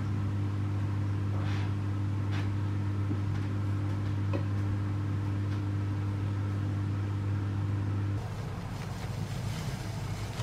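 A steady low machine hum, as from a household appliance or fan, with a couple of faint ticks. It cuts off suddenly about eight seconds in, giving way to a softer, rougher low noise.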